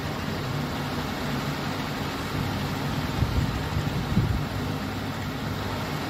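Balls of cake dough deep-frying in hot oil in a kadhai: a steady sizzling hiss from the bubbling oil, with a couple of soft knocks around the middle.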